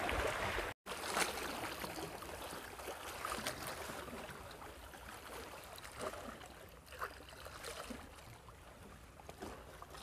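Small choppy sea waves lapping and splashing at a rocky shore, faint and steady, with wind rumbling on the microphone. The sound drops out completely for a moment just under a second in.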